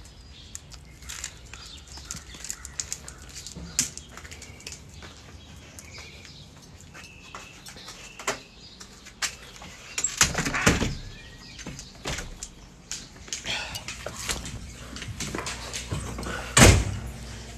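Scattered clicks and knocks as a dog is let in through a metal-barred storm door, with a louder clatter about ten seconds in and a sharp bang near the end.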